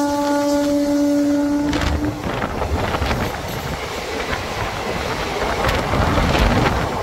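Indian Railways electric locomotive horn held as one long steady tone that cuts off about two seconds in, followed by the express train rushing past with its wheels clattering over the rail joints.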